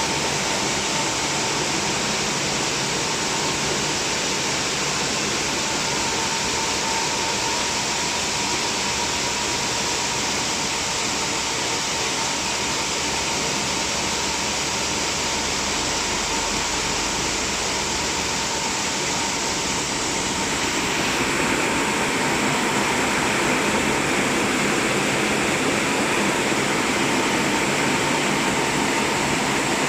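Christ Varius gantry car wash running with a steady, loud machine-and-spray noise and a faint steady hum. About twenty seconds in, the sound shifts to a slightly louder, brighter noise, as the machine moves into another stage of its cycle.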